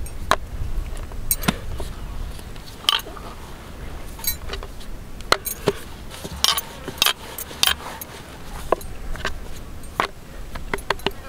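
Metal gas canister used as a rolling pin, clicking and clinking against a wooden board as momo dough is rolled thin. Scattered sharp clinks, some with a short metallic ring, over a low steady rumble.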